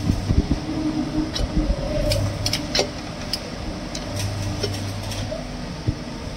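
Scattered small clicks and creaks as a mushroom plug is pushed through the puncture in a tubeless tyre's inner liner with a plug-insertion gun. A steady fan-like hum runs underneath.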